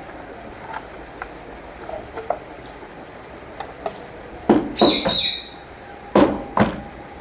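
Knocks and bangs from a bird breeding box being cleaned out: a few light taps, then four loud knocks in the second half. A bird chirps briefly over the second knock.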